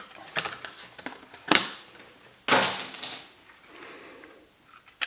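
Plastic packaging of a solid-state drive being opened and handled: a series of sharp clicks and crinkles, the loudest about a second and a half and two and a half seconds in.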